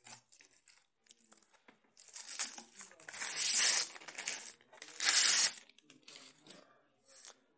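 Plastic bag crinkling and rustling in several bursts as a boxed hard drive is slid out of it, the longest and loudest for about a second in the middle.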